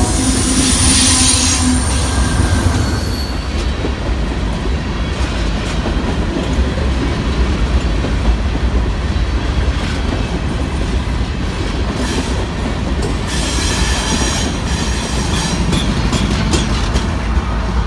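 Freight train passing close by, its wheels rumbling steadily over the rails. A high, thin wheel squeal sounds in the first couple of seconds, and clacks of wheels over rail joints come thicker near the end as another locomotive rolls past.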